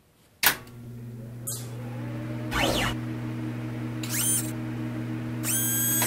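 Electronic logo sting: a sharp hit about half a second in, then a steady low synthesized drone. A pitch sweep falls and rises in the middle, and two short bright electronic tones sound near the end.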